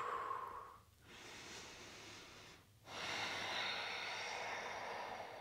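A woman breathing slowly and audibly. One breath fades out about a second in, a softer breath follows, and a longer, louder breath starts about three seconds in.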